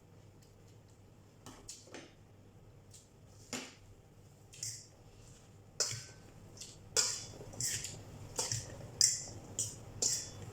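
A fork clinking and scraping against a salad bowl: a few sparse taps at first, then quicker, more regular clinks from about halfway.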